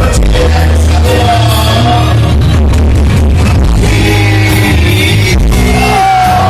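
Live rock band playing through a stadium PA, a male lead voice holding long sung notes over a steady heavy bass and drums. The sound is loud and of poor quality.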